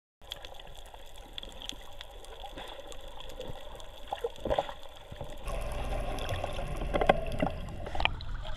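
Water gurgling and bubbling around a submerged camera, with many small clicks. It gets louder and fuller about five and a half seconds in.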